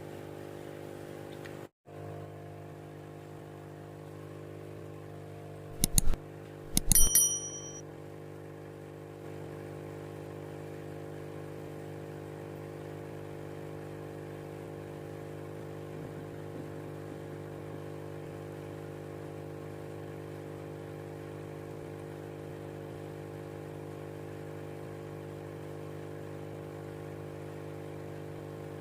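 Small electric motor of a homemade aquarium powerhead pump running with a steady hum. About six seconds in come two sharp metallic clinks, the second ringing briefly.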